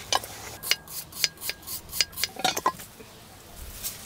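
Sharp metallic clinks and taps from a knife and an old box iron being handled, about a dozen in the first three seconds.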